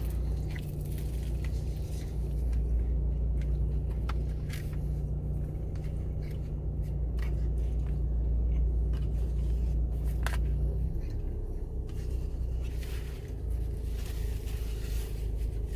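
Car engine idling, a steady low hum heard from inside the cabin, with the hum shifting slightly about two-thirds of the way through. A few short clicks and scrapes of eating and utensils come over it.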